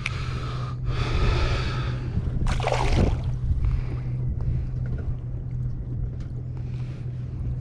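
Wind rumbling on the microphone of a kayak at sea, with water lapping at the hull. There are a few louder gusts in the first three seconds.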